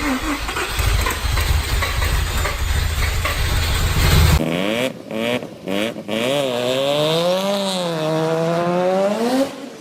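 Mazda 13B two-rotor rotary engine revving. For about the first four seconds it runs loud with a heavy low rumble; then, after a sudden change, a clear engine note rises and falls through several revs, with a few brief breaks.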